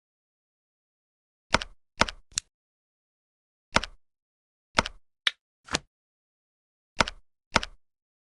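A series of short, sharp knocks at irregular intervals, about nine in all, some in quick pairs or threes, with dead silence between them.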